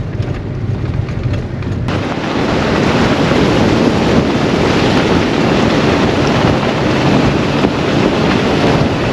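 A vehicle's low engine hum, then, about two seconds in, a sudden loud, steady rush of wind noise on the microphone.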